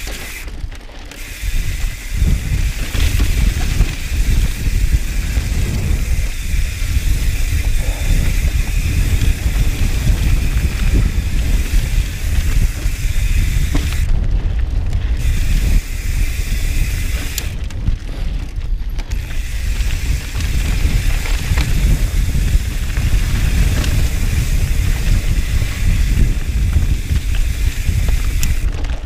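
Mountain bike rolling along a dry, rocky dirt singletrack, heard from a camera mounted on the bike: tyres running over dirt and stones and the bike rattling, over a heavy low rumble of wind on the microphone.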